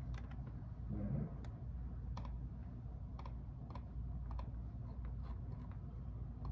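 Typing on a computer keyboard: irregular, scattered key clicks over a low steady hum.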